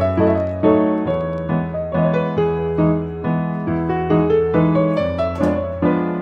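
Background piano music: a gentle tune of struck notes and chords over a bass line, moving at a steady pace.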